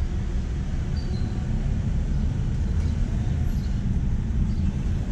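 Steady low rumble of a car's engine and road noise, heard from inside the cabin while driving slowly through traffic.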